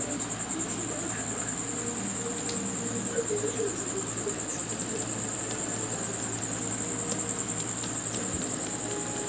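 A cricket trilling steadily at a high pitch, with a few faint clicks.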